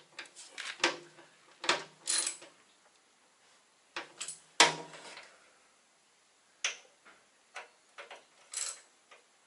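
Hand ratchet clicking in short, irregular runs as bolts on a TriPac APU are snugged down by hand, giving them the final tightening that an air wrench doesn't reach.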